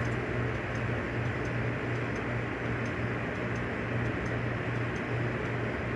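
Steady hiss over a low electrical hum, with a faint tick repeating about every 0.7 seconds.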